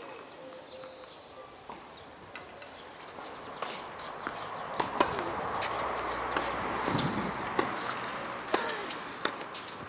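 Tennis balls bouncing and being struck on an outdoor hard court: scattered short, sharp knocks over a steady hiss that swells through the middle.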